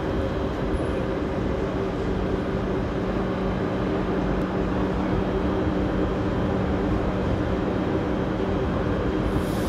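TGV Réseau high-speed trainset standing at the platform, its on-board equipment running with a steady hum and several held tones. A high hiss comes in near the end.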